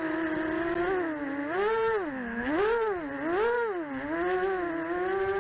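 Racing FPV quadcopter's brushless motors and propellers whining steadily, the pitch rising and falling three times in quick succession midway as the throttle is blipped.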